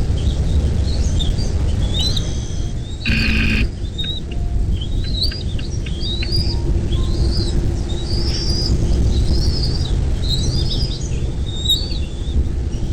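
Birds chirping, with many short, high slurred notes throughout and one harsher call about three seconds in, over a steady low rumble.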